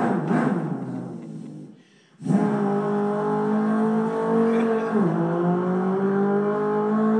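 A person imitating a car engine with their voice. A short wavering growl fades out, then after a brief pause comes a steady engine-like drone. About five seconds in, its pitch drops suddenly and then slowly climbs again, like a car changing up a gear.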